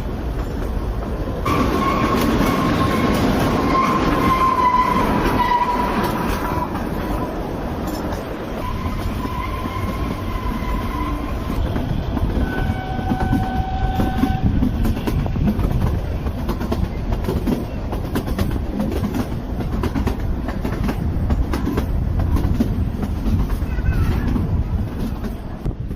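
Narrow-gauge Kalka–Shimla toy train running on the rails: a steady rumble with the clickety-clack of the wheels. High whining tones come and go a few times, the first lasting about four seconds.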